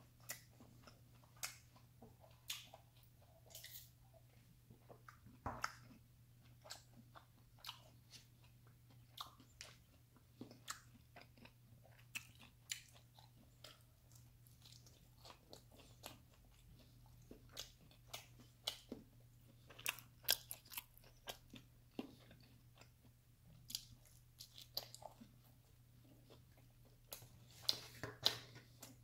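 Close-miked chewing and biting of pepperoni pizza: irregular wet mouth clicks and crunches of the crust, over a faint low steady hum. Near the end comes a denser cluster of crackly sounds as another slice is pulled from the box.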